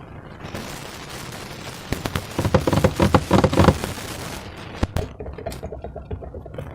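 Slime being squished and worked by hand, with dense wet crackling and popping from trapped air, loudest in the middle and with one sharp pop near the end.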